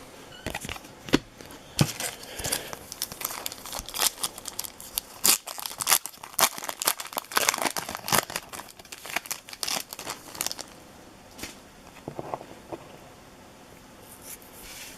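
Foil wrappers of baseball card packs being torn open and crinkled, a dense run of crackling rustles that dies down about two-thirds of the way through, followed by a few soft handling sounds.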